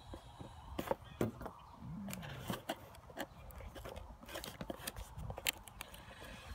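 Cardboard box and packaging being handled and opened one-handed to unpack a spinning reel: scattered clicks, scrapes and rustles at an uneven pace.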